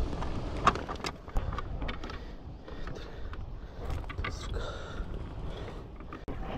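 Wind buffeting the microphone and water moving against a plastic sit-on-top kayak's hull, with a few light knocks and clicks of gear on the deck.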